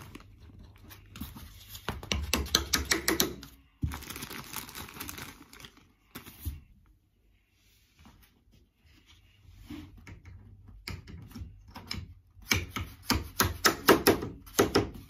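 A hand screwdriver driving screws to fix the feet onto the base of a flat-pack chest of drawers. Two spells of rapid clicking and knocking, about two seconds in and again near the end, with rustling and scraping between.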